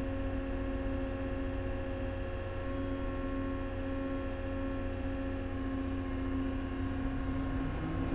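Cat small wheel loader's diesel engine held at high idle while its hydraulics lift a full bucket of sand, heard from inside the cab. It is a steady hum with a few steady tones on top, and the tone changes slightly near the end.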